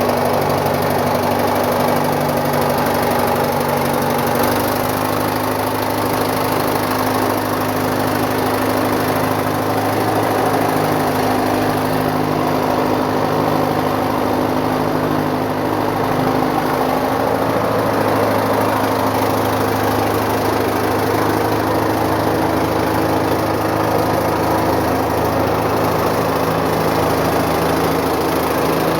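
Caterpillar 955 track loader's diesel engine running steadily at idle, its note shifting slightly a little past halfway.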